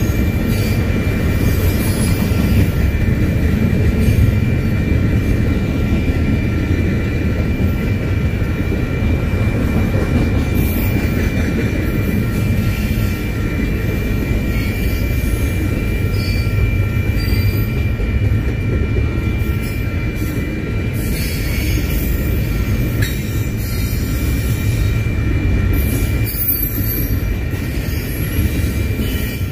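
Double-stack container well cars of a freight train rolling past, their steel wheels giving a steady low rumble on the rails, with a thin, steady high-pitched squeal over it.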